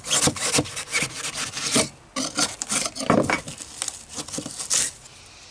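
Irregular rough scraping and rubbing strokes from digging waterlogged flotation foam out from under a fiberglass boat floor, with a short pause about two seconds in.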